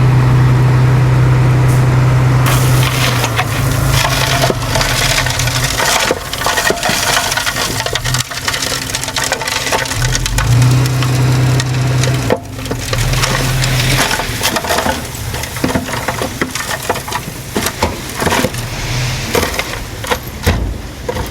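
Heavy earthmoving machinery working: a diesel engine running at a steady pitch, dropping away about four seconds in and coming back for a few seconds midway, over dense crunching and cracking of material being crushed and pushed from about two seconds in.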